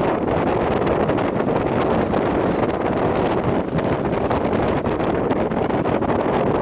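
Strong wind buffeting the microphone: a loud, steady rumble of noise with no break.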